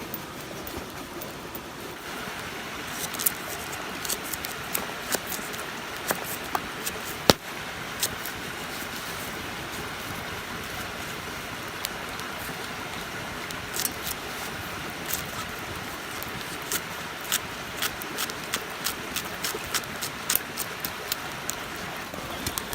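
Hardwood campfire crackling, with sharp irregular pops, the biggest about seven seconds in, over the steady rush of a nearby river.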